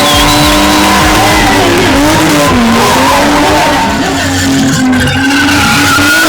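A BMW drift car spinning: its engine held at high revs, the pitch dipping and climbing, while the rear tyres squeal and skid on the tarmac.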